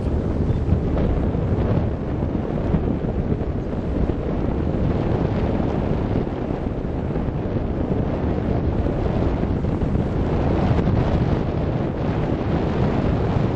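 Steady wind buffeting the microphone on a moving tour boat, over the low rush of the boat running through the water.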